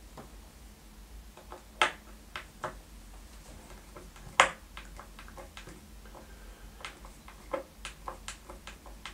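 Scattered clicks and knocks of a screwdriver and hands working screws on a guitar body, with two sharper knocks about two seconds and four and a half seconds in and a run of small ticks near the end.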